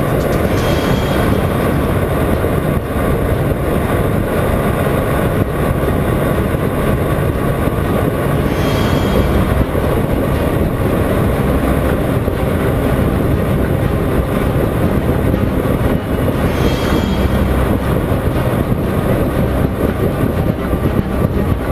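Steady rush of wind over a bike-mounted action camera at highway speed, with the Honda CBR 125R's small single-cylinder four-stroke engine running steadily underneath.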